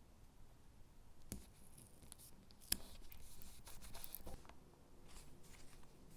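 Faint paper and sticker handling: a few light taps and short scratchy rustles, the sharpest tap close to three seconds in.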